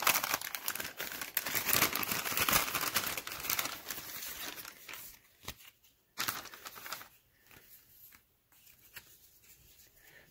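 Brown paper bag crinkling and rustling as it is handled and opened, dense for the first four seconds or so. Then a few short rustles as the contents are pulled out, dying away toward the end.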